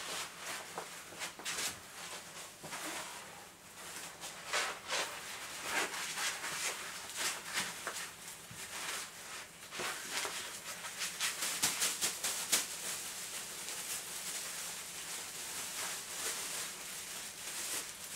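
Acid-free wrapping paper and plastic sheeting rustling and crinkling as objects are wrapped by hand: an irregular run of crackles, with bubble wrap and a plastic bag handled near the end.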